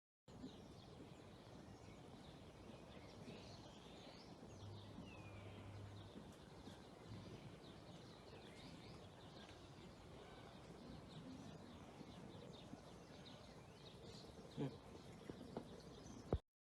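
Faint outdoor background noise with small birds chirping and twittering, many short high chirps throughout. A couple of soft knocks come near the end.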